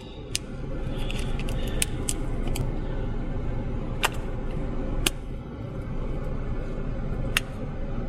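Sharp, scattered clicks and snaps of a 35mm film camera and its film being handled while a roll of film is loaded, over a steady low rumble inside a car's cabin.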